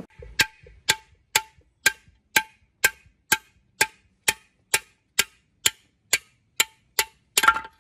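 A hammer striking a metal engine part in a steady rhythm, about two ringing blows a second, then a longer rattling clatter near the end.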